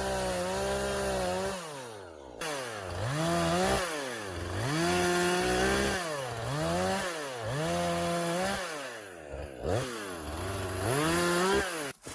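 Two-stroke chainsaw revving up and dropping back to idle about six times, roughly every two seconds, then cutting off near the end.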